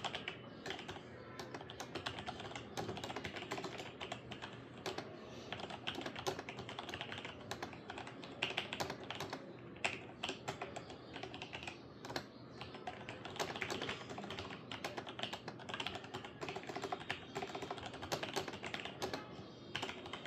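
Continuous fast typing on a Logitech G613 wireless mechanical keyboard with Romer-G switches: a dense run of key clicks and clacks, with a couple of brief pauses about halfway through.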